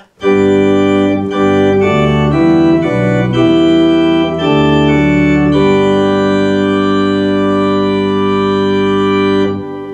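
Viscount Sonus 60 Physis digital pipe-organ sound, playing chords on the full Great diapason chorus up to mixture. A few quick chord changes lead into one long held chord that cuts off just before the end.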